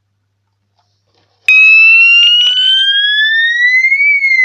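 Electronic fire alarm sounder playing its third tone, a siren sweep: after a short silence it comes on about a second and a half in, rises slowly in pitch for about two and a half seconds, then starts falling near the end.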